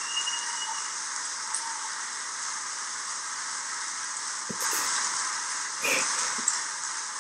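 Applause from a large audience, a dense and steady clapping that swells slightly about halfway through.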